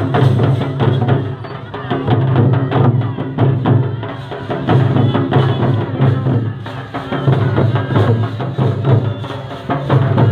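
Jharkhand tribal folk music played live: hand-beaten barrel drums (mandar) keeping a fast, dense rhythm, their low beats coming in phrases of about two seconds, with voices over the drumming.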